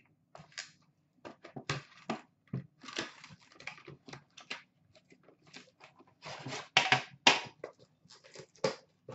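Cardboard box being handled and a metal card tin slid out of it and set down on a glass counter: a run of irregular rustles, scrapes and clicks, with two sharp knocks about seven seconds in.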